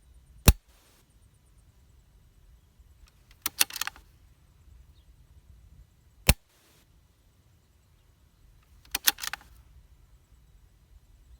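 Tikka T1X .22 LR bolt-action rifle firing twice, about six seconds apart, each shot a single sharp crack. About three seconds after each shot the bolt is worked, a quick run of metallic clicks as a fresh round is chambered.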